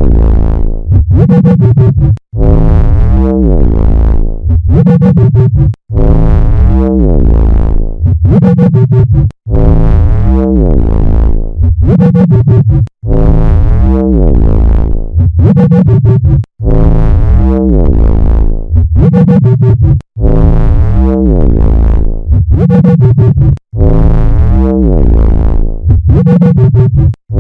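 Synthesized flying-saucer sound effect: a loud electronic tone with sweeping, gliding pitches. It repeats as a loop about every three and a half seconds, with a short break between each repeat.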